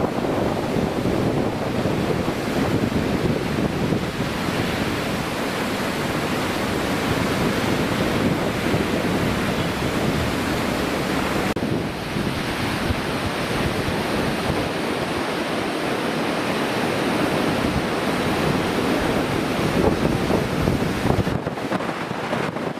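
Floodwater of the River Irwell rushing, a steady loud roar of water pouring over a weir and then surging along flooded banks, with the sound shifting slightly about halfway through. Wind buffets the microphone.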